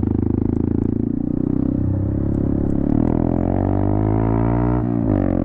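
Honda Grom 125cc's single-cylinder engine running, steady at first, then its revs rising and falling in the second half.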